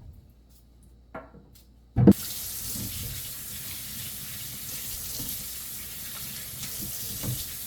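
Kitchen tap turned on with a knock about two seconds in, then running steadily into a sink.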